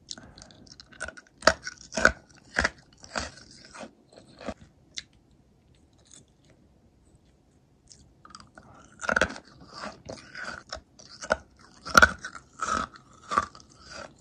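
Hard xylitol candy bears being crunched and chewed, bitten through instead of left to melt in the mouth. A run of sharp crunches lasts about four seconds, then a pause, then a second run of crunches starts about nine seconds in.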